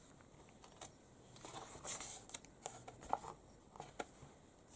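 Magazine pages being handled and turned: faint paper rustling, with a few small clicks and taps.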